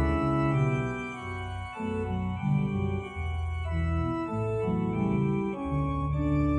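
Organ playing held chords over a deep bass line, changing every half second or so: the closing music at the end of Mass.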